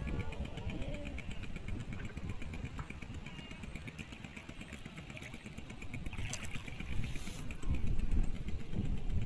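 Small fishing boat's engine running steadily under way, with water washing past the hull. A splash of spray hisses about six seconds in.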